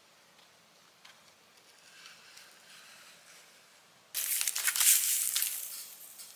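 Plastic packaging of nail products crinkling and crackling as it is handled: soft rustling at first, then a loud burst of crackling starting about four seconds in that fades over the next two seconds.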